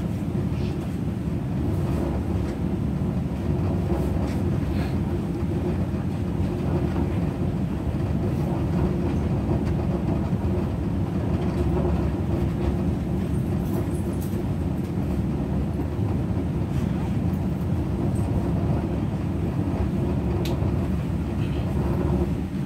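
Alstom Minuetto diesel multiple unit under way, heard from inside the passenger car: a steady low rumble of engine and wheels on the rails, with a few faint clicks from the track.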